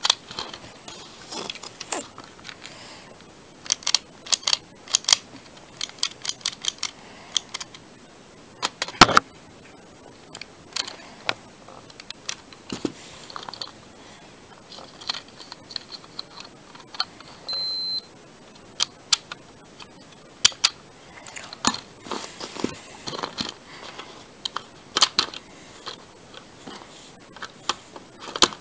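Scattered sharp plastic clicks and clacks of a LEGO pistol being handled and its mechanism worked, with one louder click about a third of the way in. A brief high beep sounds a little past halfway.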